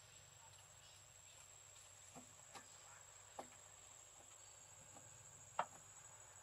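Near-silent outdoor ambience: a faint steady high-pitched whine with a few soft ticks, the loudest about five and a half seconds in.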